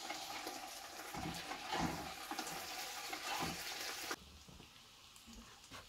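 Sliced potatoes and carrots sizzling in a cast-iron skillet, with the scrape of a utensil stirring them. The sizzle drops away suddenly about four seconds in, leaving a faint hiss.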